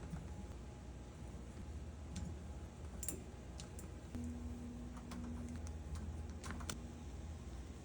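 Faint scattered clicks and light taps, like small hard objects being handled, with a low steady hum that comes in about halfway through and stops near the end.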